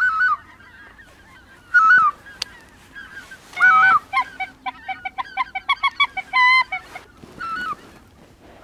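White-fronted geese calling: loud, high two-note yelps repeated about every two seconds, with a quick run of short cackling notes in the middle.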